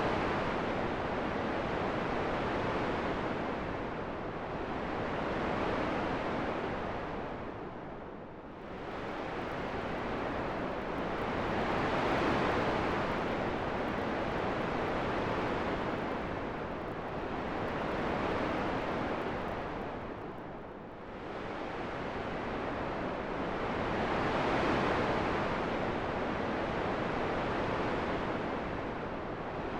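Wind blowing in slow gusts: a steady rushing noise that swells and fades every few seconds, dipping low twice, about 8 and 21 seconds in.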